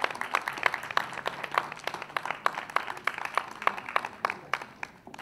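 Audience applauding, a crowd of irregular hand claps that thins out and fades near the end.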